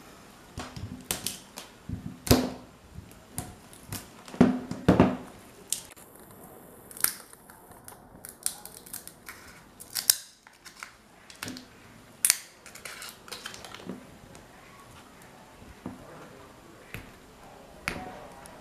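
Hands working the copper windings of an electric fan motor's stator: irregular clicks, scrapes and crinkling of wire, with a few sharper snaps among them.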